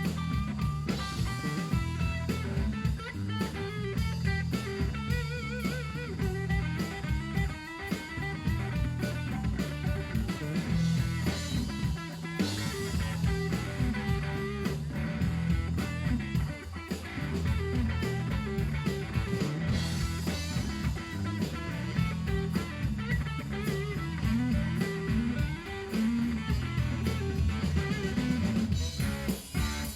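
Live blues band playing an instrumental stretch of a song: guitar lead with bent, wavering notes over a drum kit and a low, steady groove.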